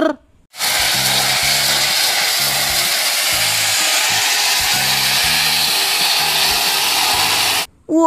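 Gravel pouring out of a dump truck's tipped bed, a steady loud rush, over music with a low repeating bass pattern.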